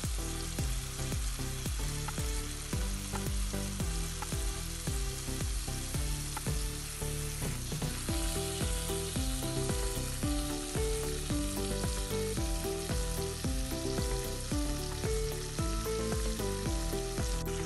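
Beef chuck steaks sizzling as they fry in butter in a frying pan, with occasional clicks of a fork moving them against the pan. Quiet background music with steady changing notes plays underneath.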